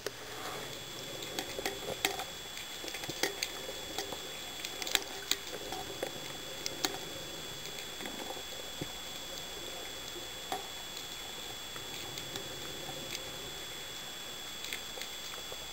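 Underwater ambience picked up through a camera housing: a steady hiss with a faint constant high whine, and irregular small clicks and crackles, frequent in the first half and sparse later.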